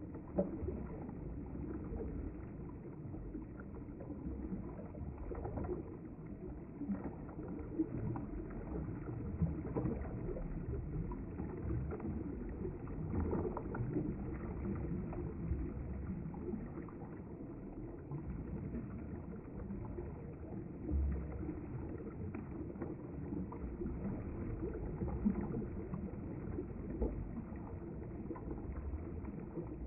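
River water flowing and gurgling along the bank: a steady rush broken by frequent small splashes.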